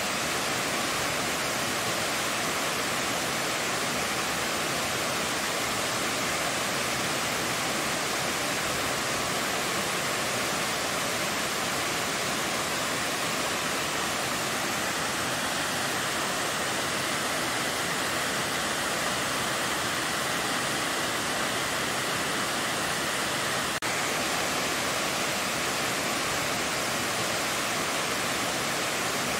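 Waterfall: water cascading down a rock face, a steady, unbroken rushing noise.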